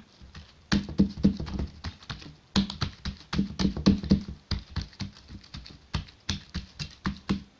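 Oiled hands patting and pressing a thin sheet of leavened dough flat in a round metal baking tray: rapid, irregular soft slaps and taps, with a short pause about two seconds in.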